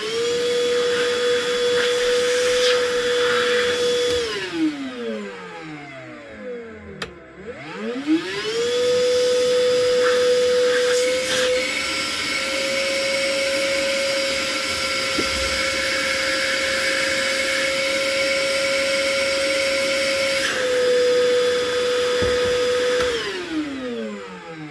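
Ozito PXC 18V cordless wet & dry vacuum's motor running during a suction test at the hose: a steady whine that spins up, shuts off and winds down after about four seconds, then starts again and runs for about fifteen seconds, its pitch stepping up slightly partway through, before winding down near the end.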